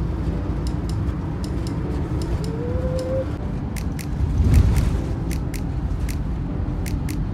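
Roller Team Zefiro 665 motorhome on the move, heard from the cab: steady low road and engine rumble with irregular sharp ticks and rattles. A brief squeak about two and a half seconds in, and the rumble swells for a moment around four and a half seconds in.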